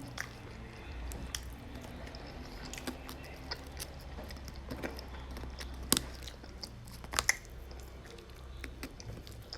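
A person chewing food, with scattered small mouth clicks and a few sharper clicks about six and seven seconds in, over a low steady hum.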